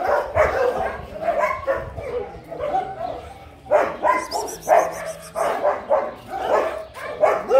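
A dog barking over and over, about two barks a second.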